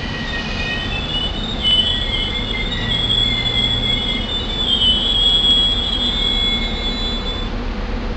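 SEPTA Silverliner IV electric commuter train rolling slowly into the station with high-pitched wheel squeal in several overlapping tones as it brakes, over a steady low rumble. The squealing stops shortly before the end.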